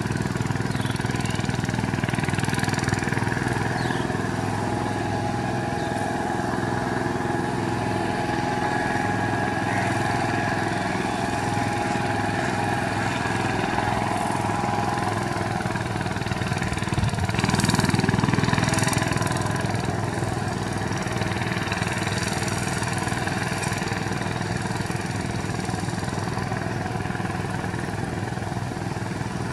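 VST Shakti 130 power tiller's single-cylinder diesel engine running steadily under load as its cage wheels drag a levelling plank through flooded paddy mud, louder for a couple of seconds a little past halfway.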